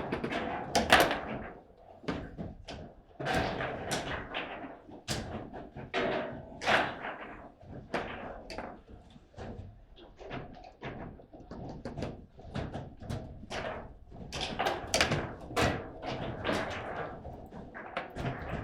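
Table football game in play: irregular sharp knocks and slams of the ball and rods on the table, the loudest about a second in.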